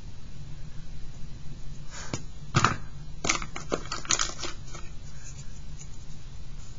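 A handful of sharp clicks and taps, the loudest about two and a half seconds in: drawing tools (an eraser, pencils and charcoal sticks) being put down and picked up on a cutting mat.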